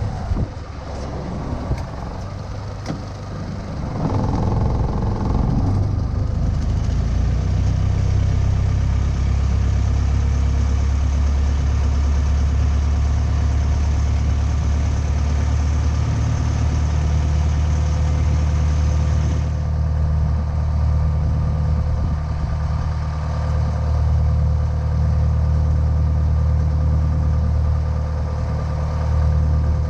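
Motorboat engine running, getting louder about four seconds in as the throttle is opened, then holding a steady low drone.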